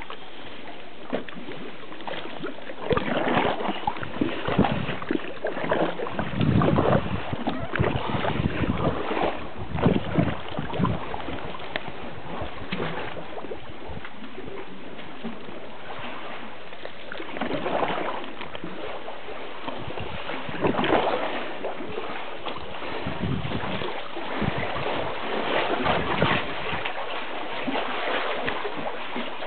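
Kayak paddle strokes splashing in the water in uneven bursts over a steady hiss of wind and lapping water.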